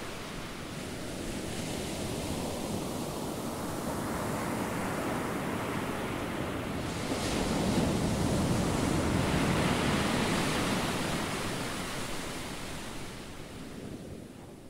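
Sea waves washing onto a shingle beach, with some wind. The surf swells about halfway through and fades out near the end.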